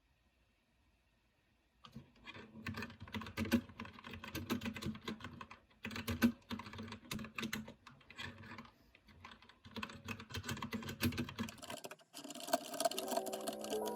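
Typing on a newly unboxed keyboard: quick runs of key clicks with short pauses, starting about two seconds in. Music comes in near the end.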